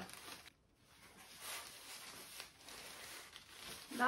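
Faint rustling of sheer curtain fabric being handled and shaken, with soft scattered crinkles, dropping out briefly about half a second in.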